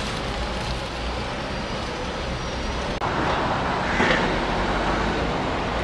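Town street traffic: cars and buses going by on wet roads, a steady hiss of tyre and engine noise. The sound breaks off briefly about three seconds in, then a vehicle passes louder, peaking about four seconds in.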